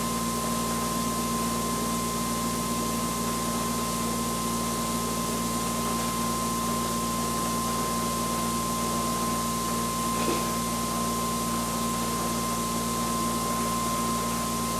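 RegenX generator prototype spun by its prime mover at no load, about 3,500 RPM: a steady machine hum with a high whine near 1 kHz over a hiss.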